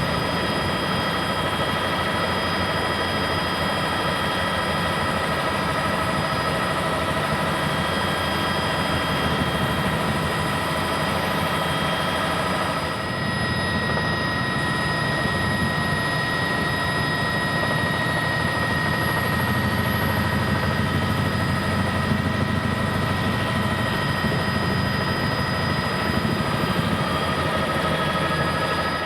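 Helicopter running steadily, a high turbine whine over the fast beat of the rotor, heard from aboard; the pitch of the whine shifts slightly about halfway through.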